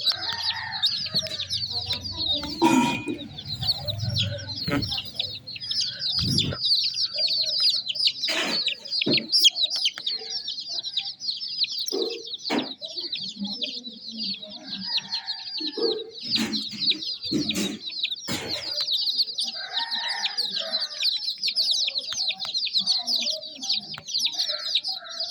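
A brood of baby chicks peeping continuously, a dense chorus of rapid high chirps. A few short knocks sound over it at scattered moments.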